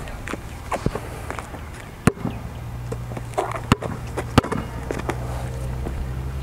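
A basketball bouncing on an asphalt court as it is dribbled slowly: a handful of sharp, separate bounces spaced unevenly, a second or more apart.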